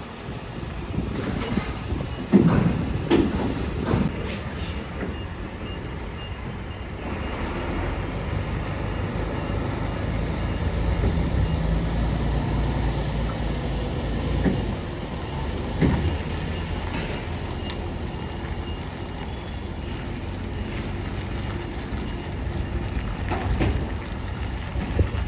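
Heavy truck's diesel engine running with a steady low rumble, with several sharp knocks in the first five seconds and another past the middle.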